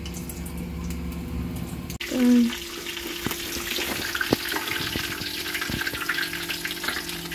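Hot oil sizzling and crackling as balls of dal dough deep-fry in an iron kadhai, with a few sharp ticks of a slotted spoon against the pan. The sizzling comes in abruptly about two seconds in, after a quieter stretch with a low hum, and a short voice sounds just as it starts.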